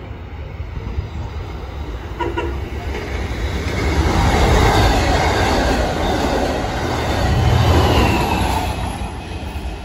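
Long Island Rail Road diesel push-pull train of stainless bilevel coaches passing close by on the near track. The rumble and wheel noise build from about three seconds in and are loudest as the cars go by. A second low peak comes near eight seconds as the diesel locomotive passes, then the noise starts to fade.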